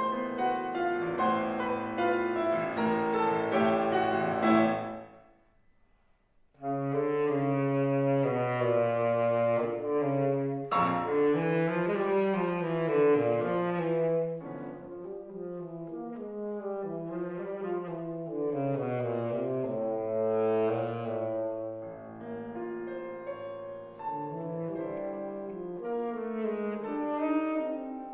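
Tenor saxophone and piano playing classical concert music. The music breaks off for about a second and a half about five seconds in, then resumes with long, low held notes and a flowing melodic line.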